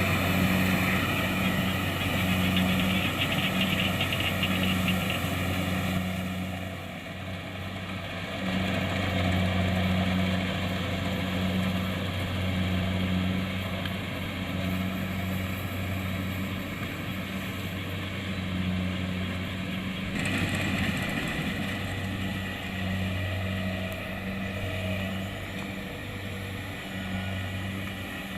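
Diesel engine of a Kubota DC-70 Plus rice combine harvester running steadily with a deep, even hum, dropping somewhat in loudness about six seconds in.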